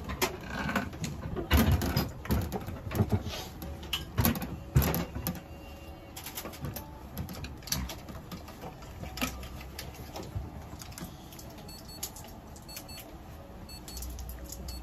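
Irregular clicks and knocks from equipment being handled, loudest and most frequent in the first five seconds, then sparser. Near the end a low steady hum starts as a red-light therapy lamp is switched on.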